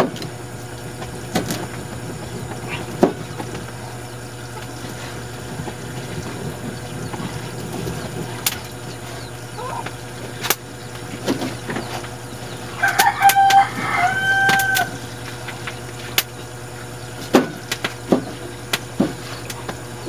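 A rooster crows once, a call of about two seconds a little after the middle, the loudest sound here. Around it, a knife taps sharply now and then on the cutting board as mushrooms are cut, over a steady low hum.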